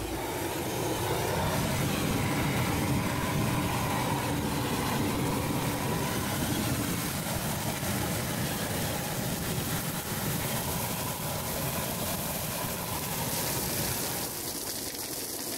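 Hand-held gas torch burning with a steady rushing noise while it lights a bonfire of dry olive branches. The noise drops and changes near the end.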